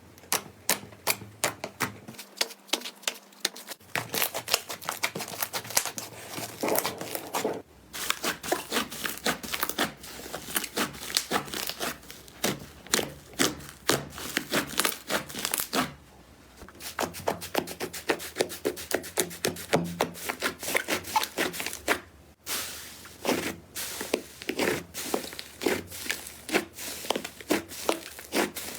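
Slime being squeezed, stretched and poked by hand: a dense run of sticky clicks and crackling pops, with short breaks about 8, 16 and 22 seconds in.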